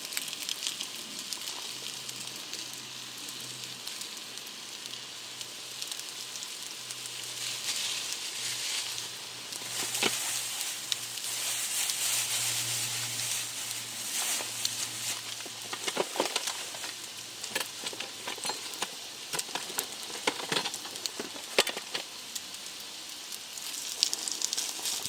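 Food sizzling in a pan over a fire, a steady hiss dotted with scattered crackles and pops.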